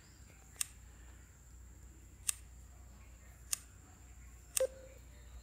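Four sharp clicks at uneven gaps of one to two seconds as beads are moved on a phone's on-screen abacus app; the last click carries a brief low ring.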